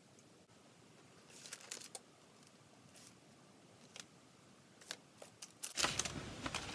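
Light clicks and paper rustles as pencil and paper are handled, then, near the end, a louder sliding rustle as the drawing paper on its board is turned on the table.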